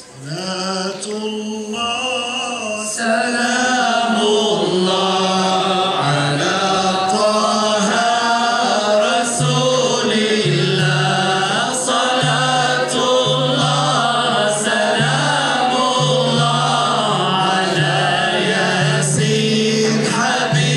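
Several men singing an Arabic devotional chant (salawat) together over a low held note, with frame drums. It swells about three seconds in.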